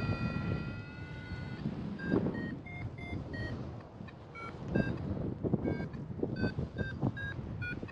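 Paragliding variometer beeping. A long steady tone, falling slightly in pitch, lasts for about the first second and a half. Short beeps at shifting pitches follow, about two to three a second, the kind a vario gives in lift. Under the beeps, wind gusts against the microphone.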